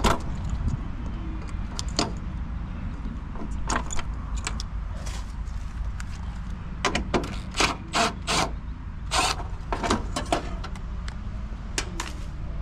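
Handling noise: scattered sharp clicks and metal clinks, bunched together in the middle, over a steady low rumble.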